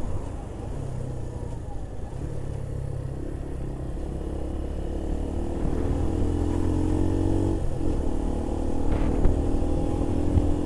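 Keeway RKV 125's single-cylinder engine running while riding, its note shifting a few times and breaking off briefly about three-quarters of the way through before picking up again.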